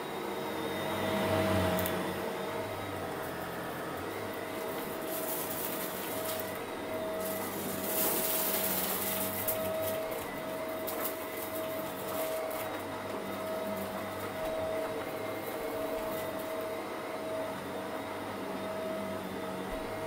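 Shark upright vacuum running steadily, its motor humming as the brushroll head is pushed over a rug. A stretch of louder hissing with crackles comes roughly a quarter of the way in, as the head works the rug.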